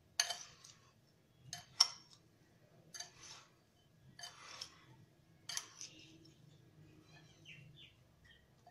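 A metal spoon stirring spice-coated carrot sticks in a glass bowl: short scrapes and clinks against the glass, about once a second, as the masala is mixed through the carrots.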